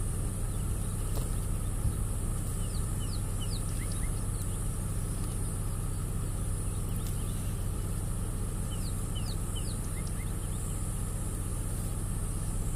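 A steady low hum of a safari vehicle's engine idling, under a constant high hiss. Two short runs of quick falling bird whistles come about three seconds in and again about nine seconds in.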